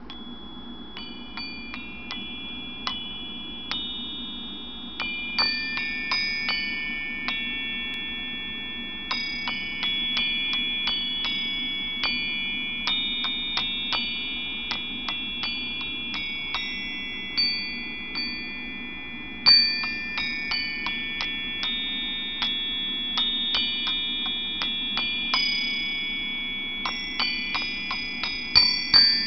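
Metal chimes struck one note at a time at an uneven pace, high bright tones that ring on and overlap one another, over a low steady hum.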